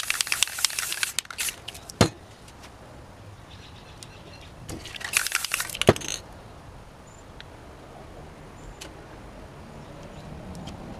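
Aerosol spray paint can spraying in two short bursts of crackly hiss, one at the start and one about five seconds in, each ending in a sharp knock. After that only faint, scattered small sounds.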